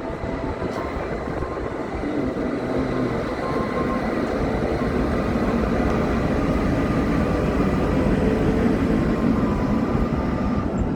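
Steady rumble of city street traffic, growing gradually louder, with a faint steady hum and no siren heard.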